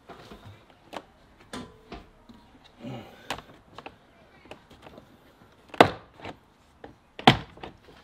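Plastic push clips of a Mercedes W204 rear door panel popping loose as the panel is pried off with a plastic trim tool. Scattered light clicks and handling noise, with two sharp snaps: one about six seconds in and another a second and a half later.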